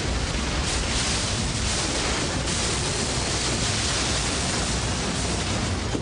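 Sustained loud rushing crash noise of an Embraer EMB 120 Brasilia turboprop tearing through trees and across the ground after impact. It is a dense, steady roar with no let-up.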